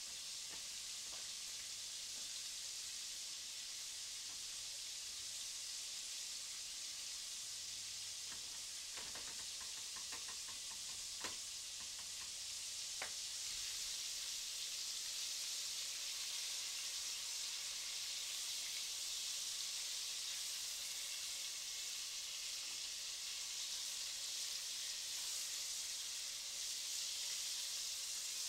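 Chicken strips deep-frying in vegetable oil in a Dutch oven, a steady sizzle that grows a little louder about halfway through. A short run of light clicks and a few sharper taps comes at about nine to thirteen seconds.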